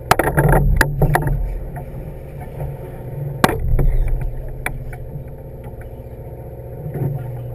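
Sportfishing boat's engine running with a steady hum, with irregular splashes of water against the hull and a few sharp knocks.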